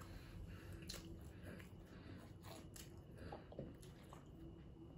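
Faint chewing: quiet mouth sounds of food being eaten, with a scatter of small soft clicks.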